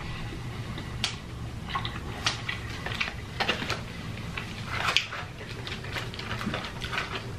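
Close-miked chewing of food: soft wet mouth clicks and crunches at irregular intervals.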